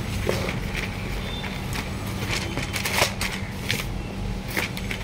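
Sheets of brown card and paper being handled and slid on a cloth-covered counter: scattered light rustles and taps, the sharpest about three seconds in, over a steady low hum.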